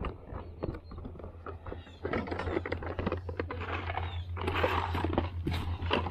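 Cardboard board-game boxes being handled and slid into a cardboard box, with knocks and a scraping rustle that grows busier about two seconds in and peaks near the five-second mark, over a steady low hum.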